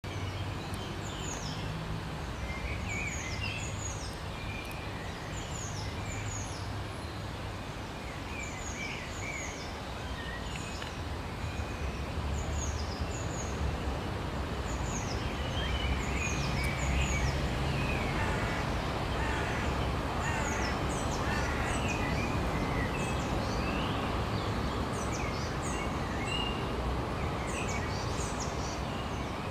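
Small birds chirping over and over, short falling chirps coming several times a second, over a steady background noise.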